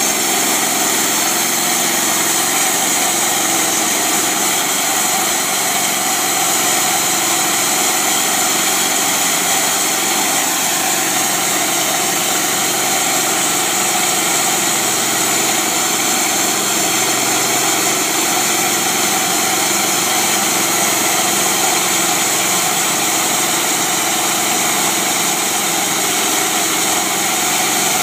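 Homemade bandsaw mill running steadily: its air-cooled small engine runs under load as the band blade cuts along a log, throwing sawdust.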